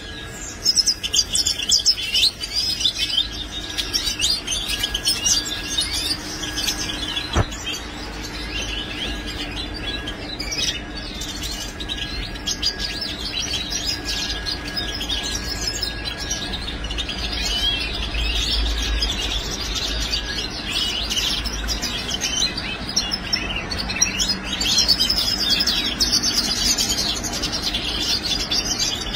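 Caged European goldfinches twittering and chirping continuously, many quick high notes and trills overlapping.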